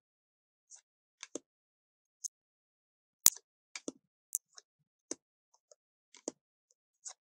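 Tarot cards being taken off a deck and laid one at a time onto a pile: a scattered series of light card clicks and flicks, about a dozen, with the sharpest snap about three seconds in.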